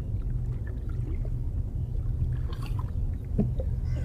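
Water lapping around a small wooden rowing boat over a steady low rumble, with a few faint knocks.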